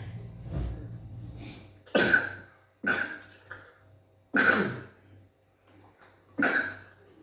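A person coughing four times in a row, each cough hard and sudden, with gaps of one to two seconds between them.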